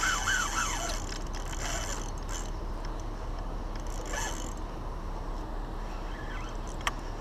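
Spinning reel clicking and ratcheting while a hooked fish is played on a hard-bent rod.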